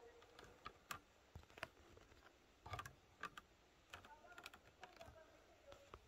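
Faint, irregular crackling of footsteps on dry fallen birch leaves along a forest path, soft crunches and clicks at uneven intervals.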